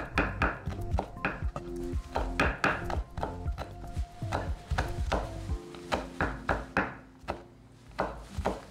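Chef's knife chopping spring onions on a wooden cutting board: quick, even strikes about four a second, with a short pause near the end, over background music.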